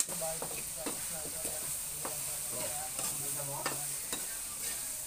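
Ground meat frying in a pan with a steady sizzle, while a spatula scrapes and knocks against the pan every second or so as it is stirred.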